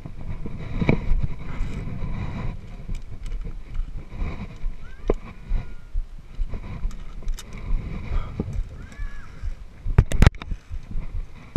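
Wind buffeting an action camera's microphone, a low rumble with scattered small clicks, then a few sharp loud knocks about ten seconds in.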